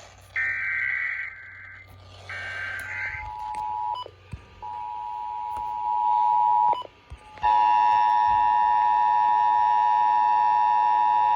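Emergency Alert System test signal: two short bursts of SAME header data, a harsh warbling digital screech, followed by the EAS two-tone attention signal (853 and 960 Hz). The attention tone is broken twice in the first part, then steady and loud for about four seconds before it cuts off.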